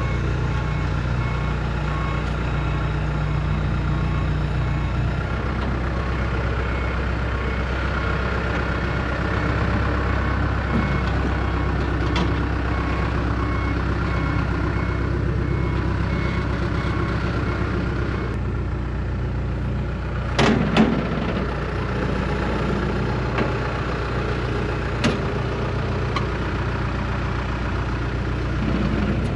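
A loader's engine running steadily under load, with its backup alarm beeping in an even on-off rhythm for the first two-thirds, then stopping. A short metallic clank comes about twenty seconds in.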